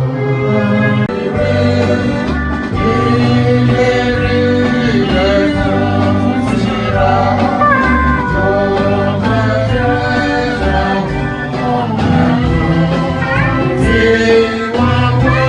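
Church worship music: singing with instrumental accompaniment over a bass line that steps between notes.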